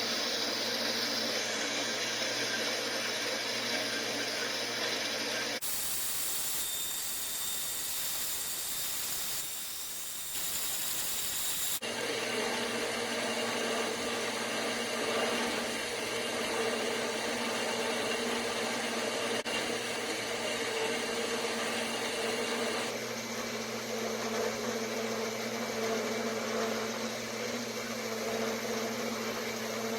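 A small machine motor running steadily, a hum of several steady tones over a hiss. The sound changes abruptly a few times; for several seconds starting about six seconds in, it turns to a more even hiss.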